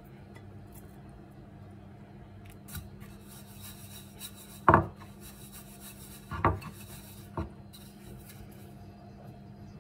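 Sesame seeds rustling and scraping in a ceramic bowl as a molasses-dipped dough ring is pressed and turned in them to coat it. Three sharp knocks come from the bowl being handled, the loudest about five seconds in.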